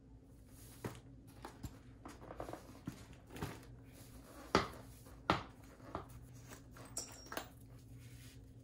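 Sharp knocks of chunky Demonia Camel 202 platform boots set down on a wooden floor while being put on, the two loudest a little under halfway through. Light rustling, then small metallic clicks near the end as a studded knee strap is buckled.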